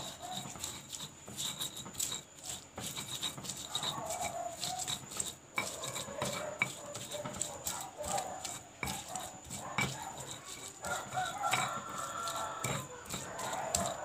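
Stone pestle grinding and crushing chilies, shallots and garlic in a stone mortar, with irregular clicks and scrapes of stone on stone. Chickens cluck in the background, with a few short calls.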